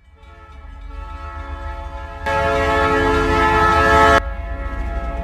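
Steam locomotive: a low rumble fading in under its whistle. The whistle blows loudest for about two seconds, starting about two seconds in, then cuts off suddenly.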